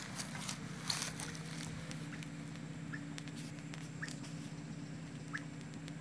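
Short rising peeps of a young karapuak bird, about one a second, over a low steady hum with scattered clicks and rustles.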